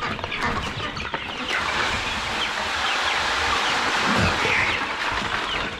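Chick feed pouring from a paper bag into a feeder, a steady rushing hiss starting about a second in, over the peeping of many young chicks.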